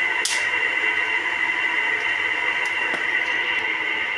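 Steady hiss from the stovetop as tomato gravy with freshly poured soy sauce cooks in a frying pan and is stirred with a silicone spatula, with a sharp knock just after the start and a few light ticks near the end.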